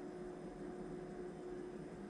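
FoodSaver vacuum sealer running steadily with a constant hum, its pump drawing the air out of a bag of chicken during the vacuum-and-seal cycle.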